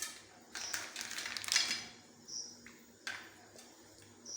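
Popcorn cooking inside a metal pressure cooker: irregular sharp pops and clatter against the metal, bunched together in the first two seconds, then single pops with a few brief high pings.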